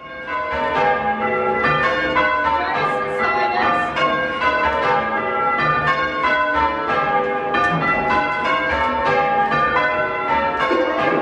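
Ring of six church bells, tenor 8-3-22 cwt tuned to G, rung full circle by hand from ropes. The strikes follow one another in quick, even succession and overlap into a continuous ringing. It begins abruptly.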